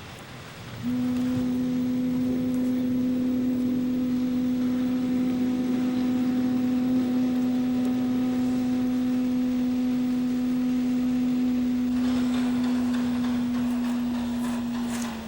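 Clay ocarina sounding one long, steady low note, held for about fourteen seconds and dipping slightly in pitch as it ends.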